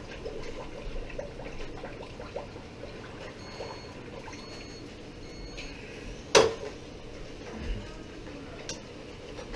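Tortilla deep-frying in hot oil in a pot, a steady bubbling sizzle, with a single sharp knock about six seconds in.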